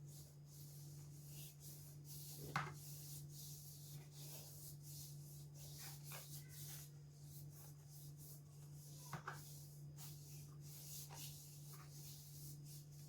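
Faint, uneven rubbing of hands over the skin of a foot, rolling a dried foot mask off in flakes, over a steady low hum, with a couple of light clicks.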